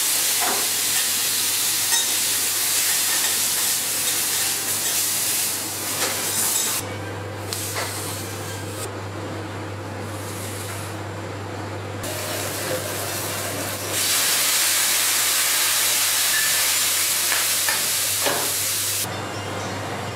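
Food sizzling on a hot steel teppanyaki griddle: a steady hiss that falls away between about 7 and 14 seconds and again near the end, over a steady low hum.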